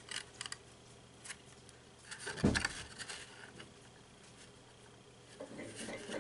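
Soft rustling and small clicks from a cardstock gift bag being handled as its glued side seam is folded and pressed together, with one louder thump about two and a half seconds in.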